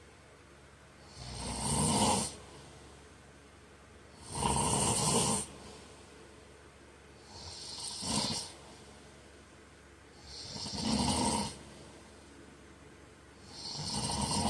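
A man snoring in his sleep: five loud snores, about one every three seconds. Most of them build over about a second and stop sharply.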